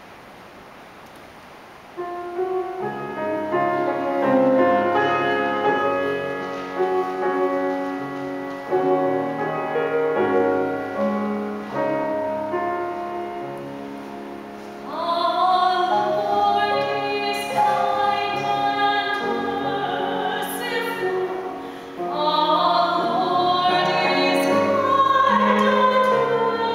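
A keyboard starts a slow introduction about two seconds in, after a quiet pause. About fifteen seconds in, a woman cantor begins singing the responsorial psalm over the keyboard accompaniment, starting a new phrase about seven seconds later.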